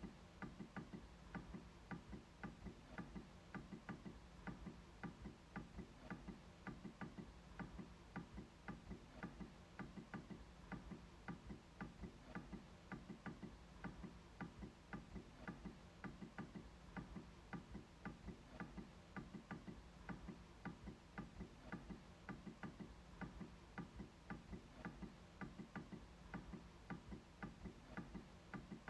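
MacBook trackpad clicking in a steady run, about two to three clicks a second.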